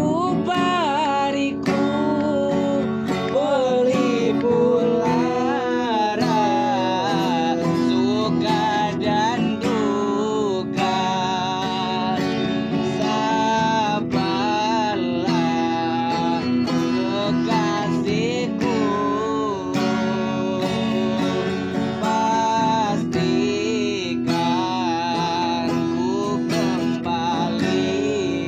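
A voice singing a wavering, ornamented melody over strummed acoustic guitar.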